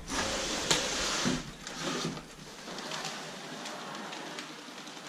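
Plastic wrapping crinkling and cardboard scraping as a bagged RC truck is slid out of its box, loudest in the first second and a half, then softer rustling with small ticks.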